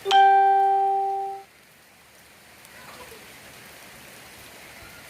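Rain falling steadily. A loud single pitched tone, like a horn or beep, sounds right at the start, holds and fades for about a second and a half, then cuts off.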